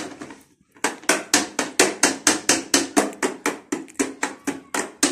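Orange plastic toy hammer striking a plastic toy truck wheel over and over: rapid, even knocks at about five a second, starting about a second in.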